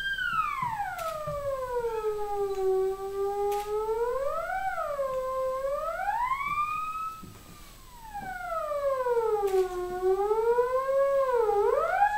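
Prepared theremin playing one slow sliding tone: it glides down from high to low over about two seconds, wavers up and down, climbs again, then makes a second long fall and a quick rise near the end. The tone fades for about a second a little past the middle.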